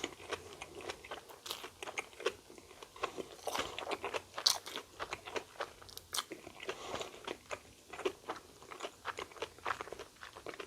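Close-up chewing of a Korean corn dog: irregular wet crunches and smacks as the batter coating and filling are chewed.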